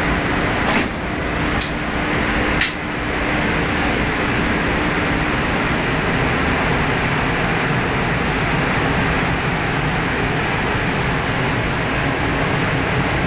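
Steady rushing air of a paint spray booth's ventilation, with three short clicks in the first three seconds.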